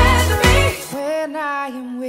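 Pop song playing; about a second in the beat and bass drop out, leaving a held sung note over light backing.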